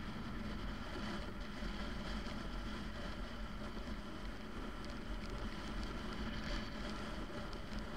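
Motorcycle engine running steadily at cruising speed, with wind and road noise rushing over the microphone.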